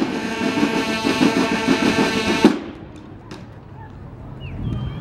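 Drum-and-bugle corps (banda de guerra) playing a short passage: bugles sounding a held chord over snare drum rolls. The band cuts off together with a final accent about two and a half seconds in.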